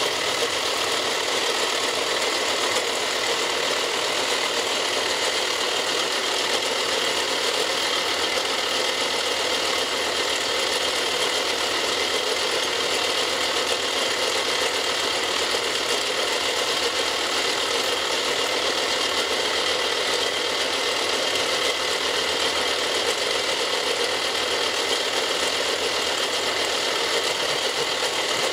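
Milling machine running steadily with its cutter milling a plastic block, a continuous mechanical whir of spindle and cut with no pauses.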